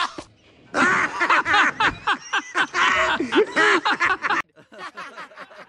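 Cartoon character's voice laughing in rapid, repeated snickering bursts, loud for about three and a half seconds after a brief pause. The laughter then carries on much fainter near the end.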